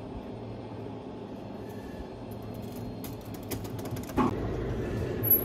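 Steady machinery hum with a run of sharp clicks and creaks, then a louder knock with a brief ring about four seconds in.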